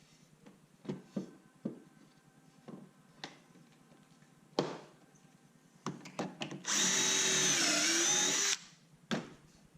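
Power drill spinning up and running for about two seconds, its pitch dipping slightly under load, boring pocket holes in the wooden frame rails. Before it come several scattered knocks of wood and tools being handled.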